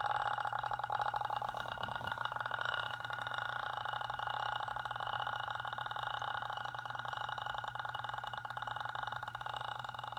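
A person holding one long, continuous raspy buzzing vocal noise, made up of rapid pulses, steady in pitch and easing slightly in loudness towards the end.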